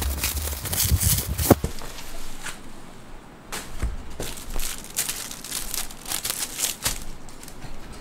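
Plastic bubble wrap crinkling and rustling as it is pulled off a boxed keyboard, densest in the first two seconds. After that come sparser rustles and light taps as the box is handled.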